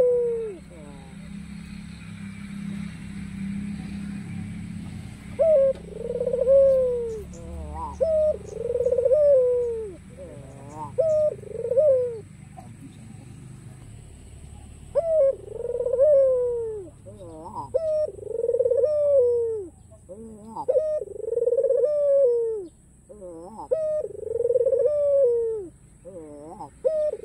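White Barbary dove (puter, ringneck dove) cooing again and again. Each phrase is a short rising note followed by a longer arched coo. The coos come in two runs, starting a few seconds in, with a pause of a few seconds about halfway.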